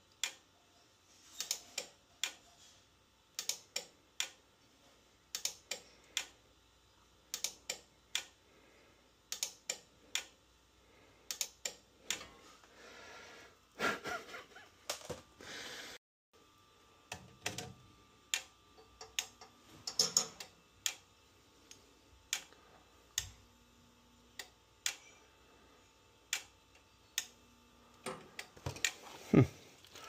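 Relay on a furnace control board clicking in and out, sharp clicks in close pairs repeating about every two seconds, with G jumpered to R on the thermostat terminals.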